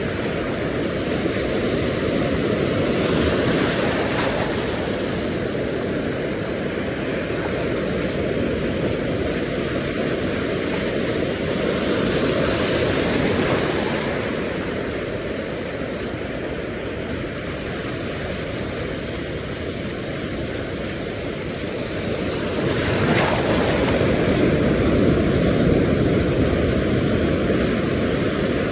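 Ocean surf washing onto the beach, a steady rush that swells louder three times as waves come in.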